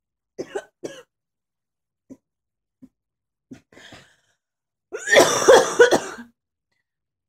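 A person coughing and clearing their throat: two short coughs near the start, a few faint small sounds, then a longer, louder coughing fit about five seconds in.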